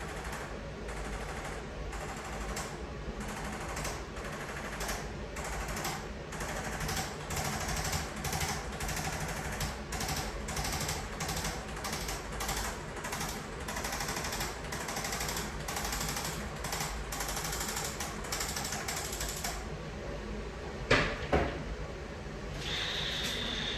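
Handheld chiropractic adjusting instrument firing a long series of impulses against the spine, sharp clicks at about two a second that stop after about twenty seconds. One louder click follows, then a short high beep near the end.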